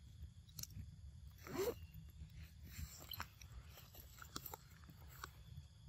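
Macaques biting into and chewing fruit close by: scattered small crunches and wet clicks. A short, louder pitched sound comes about one and a half seconds in.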